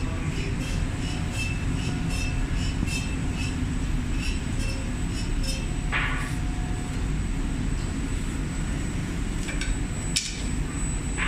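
Four-sided brush sanding machine for mouldings running with a steady low rumble. A regular light ticking, about two a second, runs through the first half, and sharp clacks come about six and ten seconds in.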